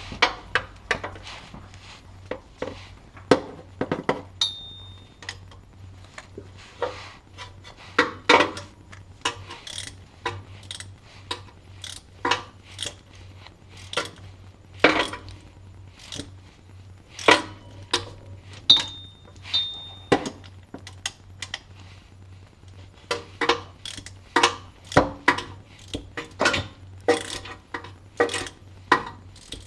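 Irregular sharp metallic clicks and clanks of hand tools working on the shifter's bolts, about two a second, over a steady low hum.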